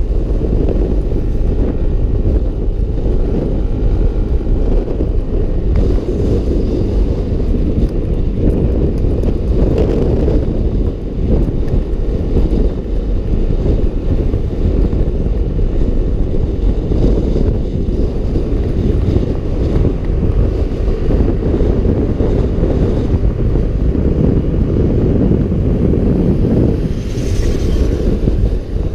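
Heavy wind buffeting on the microphone with the road and engine noise of a Yamaha NMAX single-cylinder scooter cruising at highway speed, a steady low rumble throughout. Near the end a brief brighter rush as another motorcycle draws alongside.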